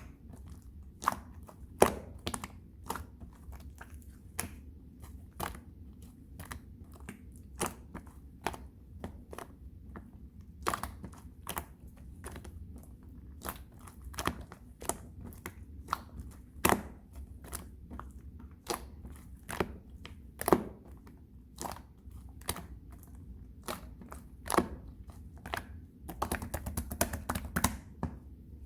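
Pink pongdang slime being pressed and squeezed by hand, giving sharp wet clicks and pops at an uneven pace of about one or two a second, which come thick and fast near the end.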